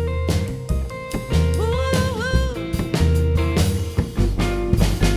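A rockabilly-style band playing an instrumental passage between sung lines: a drum kit beats steadily under held bass notes, and a lead instrument plays a line that bends in pitch.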